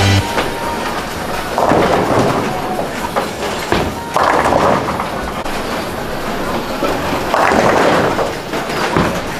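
Bowling alley din: bowling balls rumbling down the lanes and pins clattering, the noise swelling up three times.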